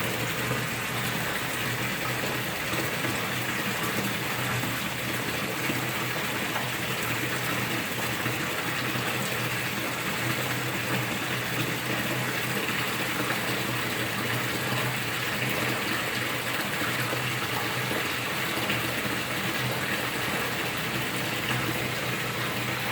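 Water from a small home fish-pond waterfall splashing steadily into the pond.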